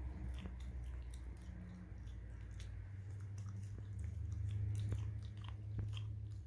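Golden retriever puppy licking and chewing at a pink rubber Kong Puppy Pacifier stuffed with frozen puppy food, giving many small wet clicks of tongue and teeth on the rubber, over a low steady hum.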